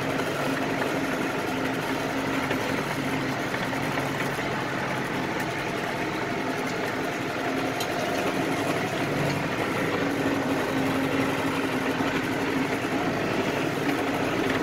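Farm tractor engine running steadily at an even pitch while the tractor hauls a manure spreader across the field, heard from the cab.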